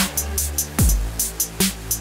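Electronic dance music with a heavy kick drum that falls in pitch, about one hit a second, over quick hi-hat ticks and held synth tones.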